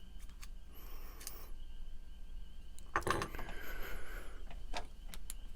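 Small metal parts of a pocket knife clicking and scraping against each other as they are handled and fitted during reassembly, while the blade and stop pin are being lined up. There are scattered light clicks, a brief scrape about a second in, and a sharper click about three seconds in followed by about a second of scraping.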